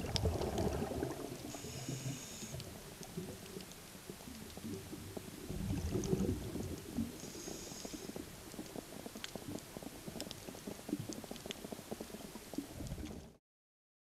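Scuba diver breathing through a regulator underwater: bubbles rumble and gurgle on each exhale, at the start, around six seconds in and near the end, with a short hiss of inhaling through the regulator between them, about every five to six seconds.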